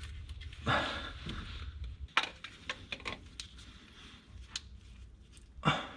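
Scattered metal clinks and knocks of an oil filter wrench being worked against a car's oil filter to loosen it, the loudest about a second in and again near the end.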